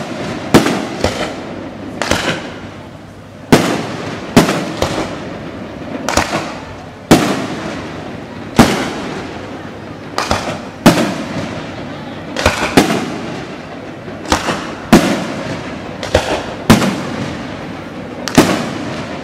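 Fireworks display: aerial shells bursting one after another, about one loud bang a second, each followed by a fading rumble.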